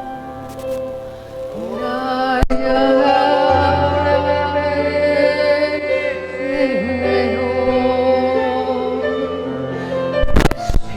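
Worship music: sustained chords with a singing voice joining about a second and a half in and a deep bass note entering soon after.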